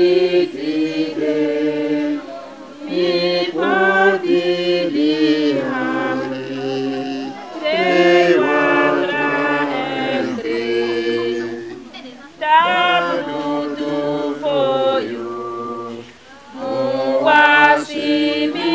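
Several voices singing together unaccompanied, a chant-like group song carried phrase after phrase with short breaks between.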